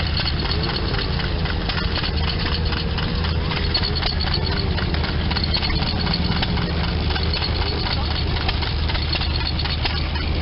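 Belt-driven antique circular knitting machine running: a dense, fast clatter of its needles and cams over a steady low drone from the drive.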